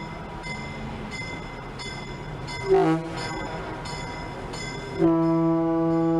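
Western Pacific 913 locomotive's two-horn air horn: a brief blast about three seconds in, then a long steady blast from about five seconds in, with a low, foghorn-like tone.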